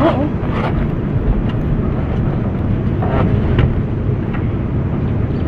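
A steady low mechanical rumble, like an engine or generator running, with a few light clicks over it.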